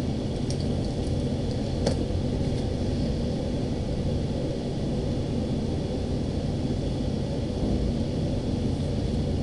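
Steady low rumble, like engine noise, with a faint click about two seconds in.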